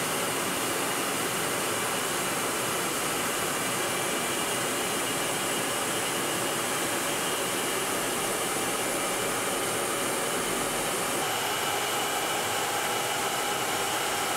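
Steady rushing roar of jet aircraft in flight, engine and airflow noise together, with a faint steady high whine running through it.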